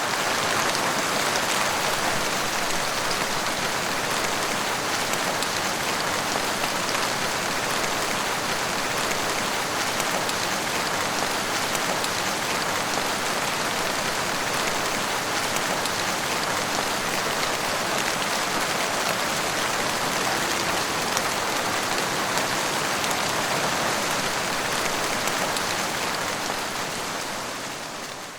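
Heavy rain falling steadily, an even hiss of many drops striking surfaces; it fades out near the end.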